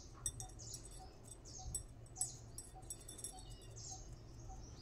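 Faint chirping of small birds: a quick run of short, high chirps about twice a second, over a low steady hum.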